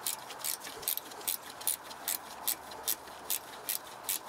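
Ratchet wrench backing out a long bolt: an even rhythm of short bursts of pawl clicks, about two or three a second, one for each return swing of the handle.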